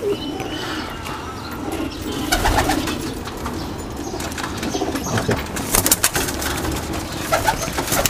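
Domestic high-flying pigeons cooing in a loft, a steady low cooing throughout, with a few short clicks around the middle and about six seconds in.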